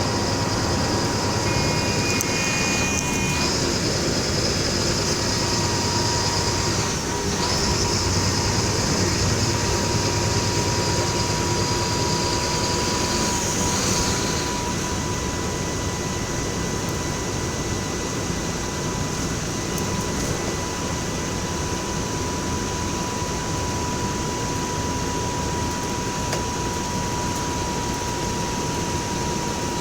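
Engine of a Mercedes-Benz OF-1724L city bus running steadily, heard as a continuous mechanical drone. A high steady whine over it breaks off briefly a couple of times and fades out about fourteen seconds in, after which the sound is slightly quieter.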